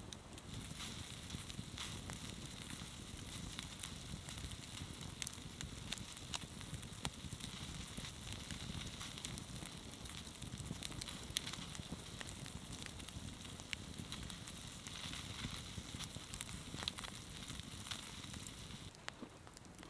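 Wood campfire burning, crackling with many sharp pops over a steady hiss, a pot of pine-sprig tea heating on the logs. The sound drops away sharply near the end.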